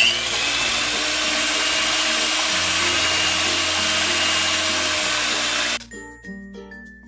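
Electric hand mixer running on low speed, its beaters whirring through raw eggs in a glass bowl, with a steady high whine over the motor noise. It starts suddenly and cuts off almost six seconds in, leaving background music.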